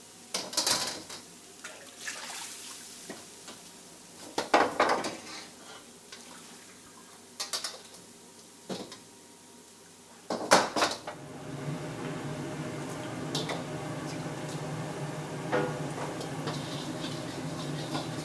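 Woks and a steel ladle clanking and scraping on a commercial wok range: several sharp metal clanks over the first eleven seconds. Then a steady low roar sets in and runs on under a few lighter knocks.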